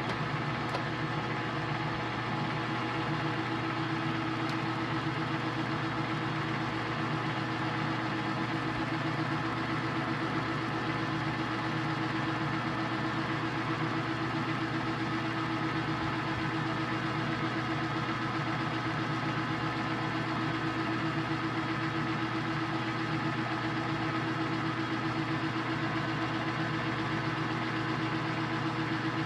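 Metal lathe running steadily at about 115 RPM under power feed while a scissor-style knurling tool's wheels roll a knurl into a 1045 high-carbon steel bar.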